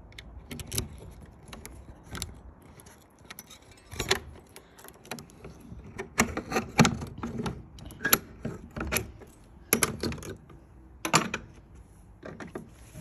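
A bunch of keys jangling, with a key clicking and scraping in the lock of a wooden garage door as it is tried: irregular sharp metallic clicks and knocks.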